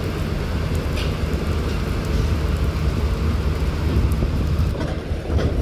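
Diesel engine of a coach bus running with a steady low hum as the bus drives slowly past, with heavy rain falling.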